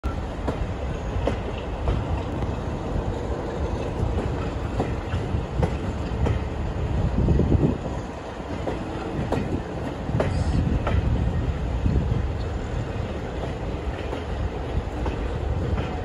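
Train running on jointed track: a steady low rumble of the carriages with a regular clickety-clack of wheels passing over rail joints.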